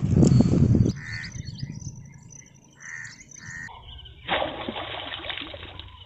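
A crow cawing a few times, each call short and separate, after about a second of loud rough rustling noise at the start. A burst of rustling noise comes in about two-thirds of the way through.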